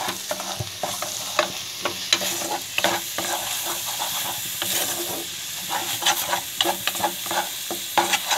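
Wooden spatula scraping and stirring a thick chhena and sugar mixture around a black kadai, several short strokes a second at an uneven pace, over a light sizzle as the mixture cooks down on low heat and dries out.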